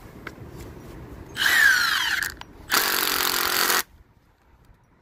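Milwaukee M18 Fuel Gen 3 brushless impact driver on speed setting 3, driving a long Torx screw into a log in two bursts of about a second each. The motor's pitch falls as the first burst ends, and the second is a dense, even hammering from the impact mechanism.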